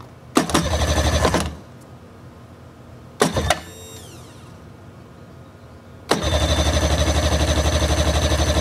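Electric starter cranking a Mercury 25 hp four-stroke outboard without it firing: a burst of about a second, a brief blip that winds down with a falling whine, then a longer steady crank with an even pulsing beat near the end. The engine won't catch because the kill-switch lanyard isn't fitted.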